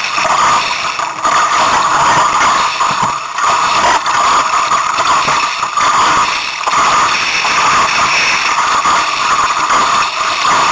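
Strong wind blowing across the camera microphone: a steady, loud rush with brief dips.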